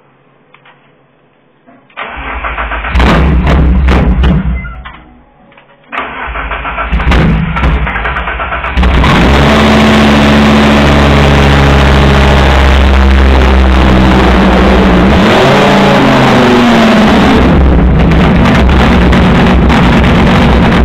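A buggy's 2.0-litre 20-valve engine with a short open exhaust pipe starting up. It fires about two seconds in and dies away after a couple of seconds. It catches again about six seconds in, runs unevenly, and from about nine seconds runs loud and steady, with one rev up and back down a few seconds before the end.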